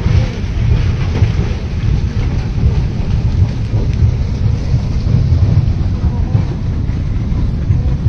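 Mudslide torrent of muddy water and debris rushing past, a loud, steady, low rumble.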